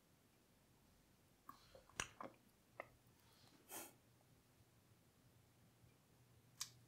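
Near silence, broken by a few faint clicks and smacks of lips and mouth, and one short breath about four seconds in.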